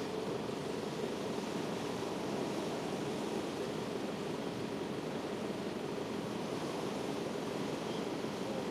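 Steady wash of shallow seawater lapping over a pebble beach.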